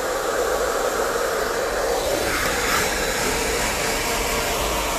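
Hand-held hair dryer with a diffuser attachment running steadily as it dries curly hair, a continuous rushing of air that grows brighter for a moment just past two seconds in.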